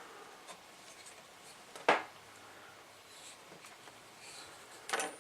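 Handling noises from the parts of a Realistic HTX-242 radio as they are fitted together by hand: light rubbing, a sharp click about two seconds in, and a short rattle of clicks near the end.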